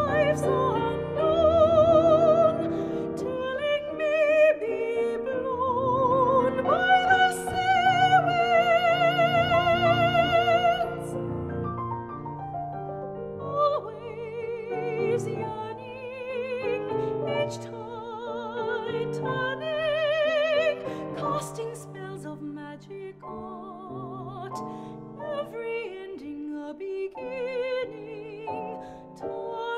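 Classical art song: a soprano singing long notes with vibrato over piano accompaniment, louder through the first third and then softer.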